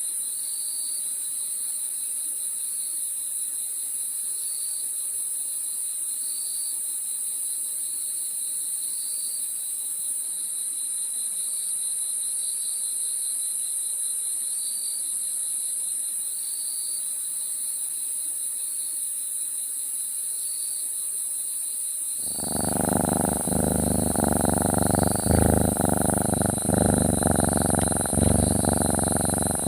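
Crickets chirping at a steady pace, roughly one chirp a second over a constant high hiss. About three-quarters of the way through, a cat's purring starts close up and becomes the loudest sound.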